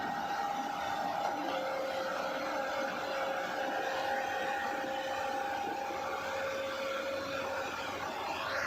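Heavy vehicle engine running steadily, with a steady whine that holds its pitch and fades out near the end.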